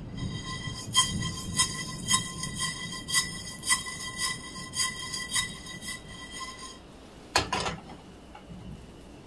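Whole spices being toasted, rattling in a nonstick frying pan as it is shaken in strokes about twice a second, with a faint steady metallic ring. About seven seconds in the pan is set back down on the gas stove's grate with a single knock.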